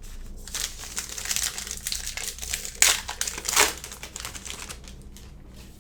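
A trading card pack's wrapper being torn open and crinkled by hand. There are two louder rips a bit past the middle, then it eases off into quieter rustling.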